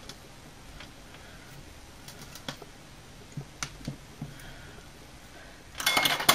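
Faint ticks and light rustles of paracord being pulled tight and handled by hand on a tabletop, with a louder burst of handling noise near the end.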